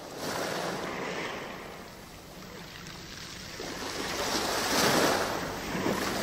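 Sea waves washing onto the shore, the surf swelling and falling back every few seconds, with the loudest wash about five seconds in.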